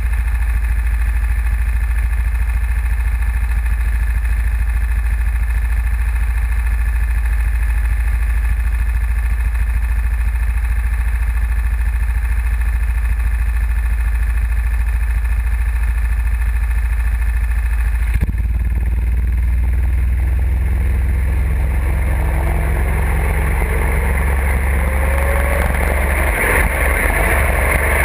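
Go-kart engines idling steadily. About eighteen seconds in the sound changes, and the engines rev up with rising pitch as the karts get under way.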